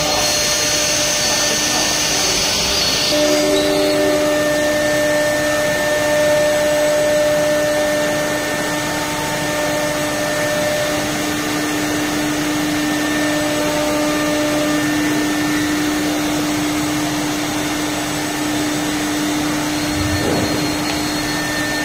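Fiber cement board grooving and slot milling machinery running: a steady, vacuum-like whirring noise with a constant hum. The high hiss drops away about three seconds in, and there is a brief low thump near the end.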